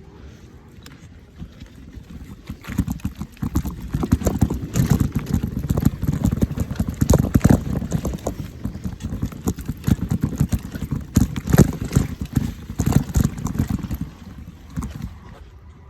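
Mountain bike rattling and clattering over rough trail ground: dense irregular knocks over a low rumble, starting about three seconds in and easing off near the end.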